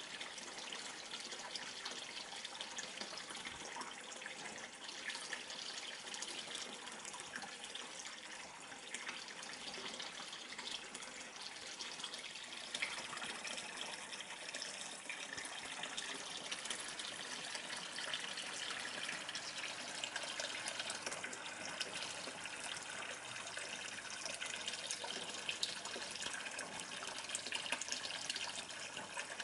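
Steady splashing of a stream of water falling from the pond filter's outlet into the surface of a turtle pond.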